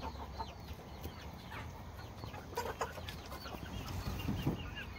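A flock of young chickens clucking and chirping: many short, high, falling notes overlapping, with a few lower clucks among them.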